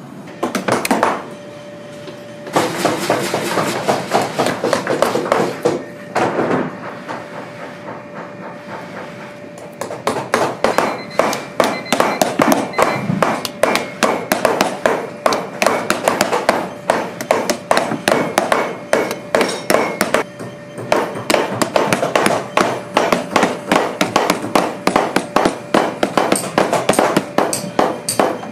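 Cobbler's hammer rapidly tapping a leather midsole down onto a boot held on its last, several quick strikes a second. The strikes come thickest from about a third of the way in.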